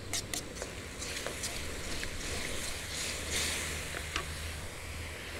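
Metal ladle clicking and scraping against a wok, with the chilli-garlic sauce sizzling in it. There are a few quick clicks near the start and another about four seconds in, and the sizzle swells in the middle.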